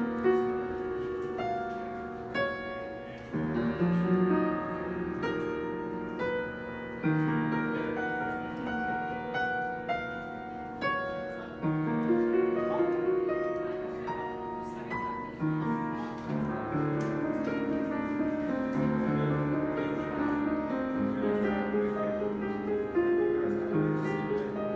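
Grand piano played solo: a melody over ringing chords, with low bass notes joining a few seconds in.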